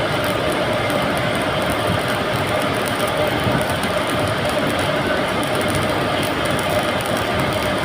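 Steady, continuous machinery noise with a faint hum, unbroken and even in level throughout.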